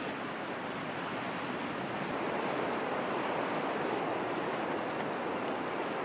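Steady wash of sea surf breaking on the shore, swelling slightly in the middle and easing again.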